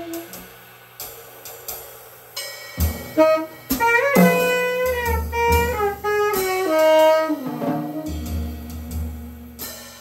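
Live jazz duo of saxophone and drum kit: the saxophone plays short phrases with bending, sliding notes over scattered drum and cymbal hits, loudest in the middle and quieter near the start and end.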